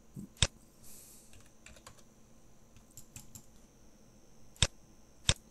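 Computer mouse and keyboard clicks: three sharp clicks, one about half a second in and two near the end, with fainter ticks in between, over a faint steady high whine.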